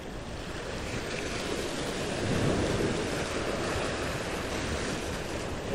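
Gulf surf washing and breaking against the rocks of a jetty, with wind buffeting the microphone; the wash swells a little about two seconds in.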